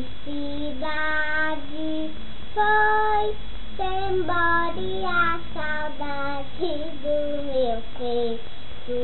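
A young girl singing without accompaniment, a string of held notes that step up and down in pitch.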